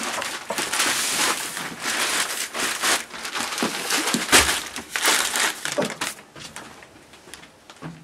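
Close rustling and crinkling full of small clicks, with a few sharper knocks, dying down after about six seconds.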